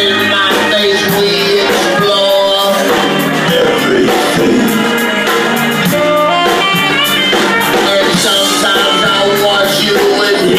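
Loud band music.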